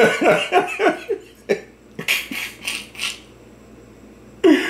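A man laughing hard with no words: choppy voiced laughs at first, then several short wheezing, breathy gasps, and another voiced laugh near the end.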